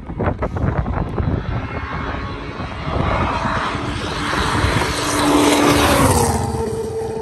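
Renault Clio rally car approaching at high revs, passing close about six seconds in with a drop in engine pitch as it goes by, then fading away. A rapid run of sharp cracks in the first second.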